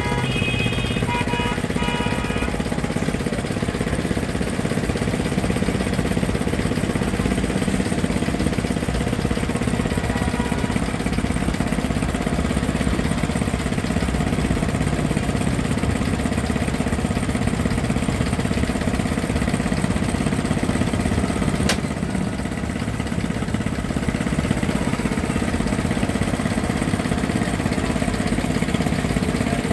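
A small engine running steadily. A short snatch of music plays at the start, and there is one sharp click a little after twenty seconds.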